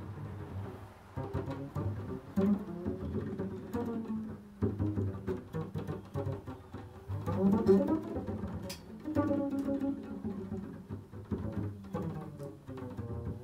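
Upright double bass played pizzicato: an improvised line of low plucked notes, each struck sharply and left to ring, about one every second or two.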